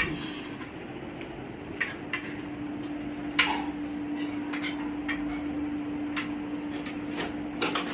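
Plastic mesh air filters of a split AC's indoor unit clicking and knocking as they are handled and slotted into place, a few sharp clicks spread through, over a steady hum.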